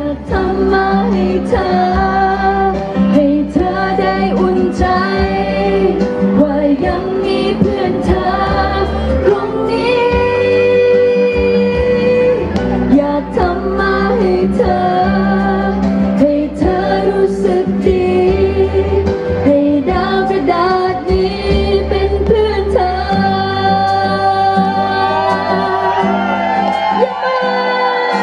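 A woman singing a Thai pop song live into a handheld microphone over a backing track played through the PA. The bass of the accompaniment drops out shortly before the end.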